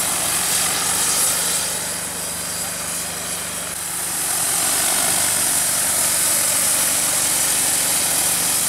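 DJI T40 agricultural drone's rotors running with a steady, loud whir and strong hiss as it flies a fertilizer-spreading run. It dips a little in level about two seconds in and grows louder again from about four seconds.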